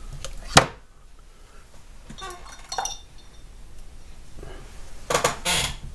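Sharp clicks and clinks of small hand tools and wooden pieces being picked up and set down on a modelling workbench: one loud click about half a second in, a few lighter ticks a couple of seconds later, and a quick cluster of clicks near the end.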